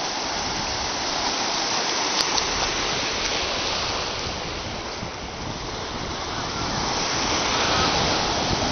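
Ocean surf: waves breaking and foaming water washing through the shallows as a steady rush, swelling louder near the end as another wave breaks.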